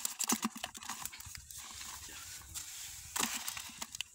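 Nylon cast net rustling and scraping as armored catfish (cari) are worked out of its mesh on wet sand, the fish flapping and clicking against the net. A dense jumble of irregular clicks, with louder clusters near the start and about three seconds in.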